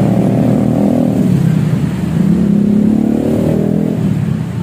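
Motor vehicle engines rising in pitch as they rev or pass, twice: briefly at the start, then more strongly about two seconds in.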